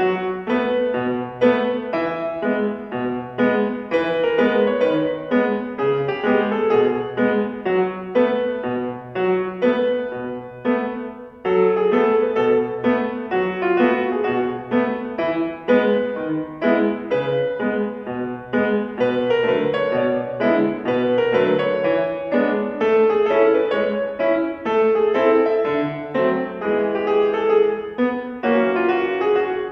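Fazioli grand piano played solo, a steady flow of notes, with a brief break about eleven seconds in.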